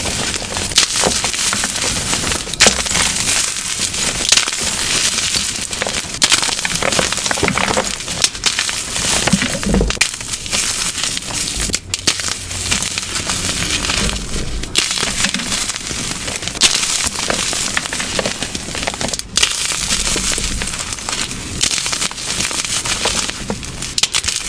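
Small gym chalk cubes filled with glitter being squeezed and crushed by hand: a dense, continuous crunching and crackling made of many small cracks.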